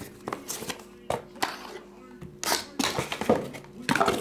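Cardboard hobby boxes being handled and set down on a tabletop: a run of irregular knocks, taps and scrapes, busiest and loudest a little past halfway and again near the end.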